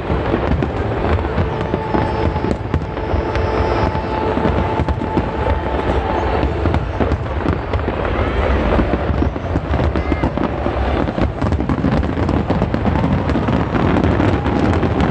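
Aerial fireworks display: a dense, unbroken barrage of shell bursts and crackle.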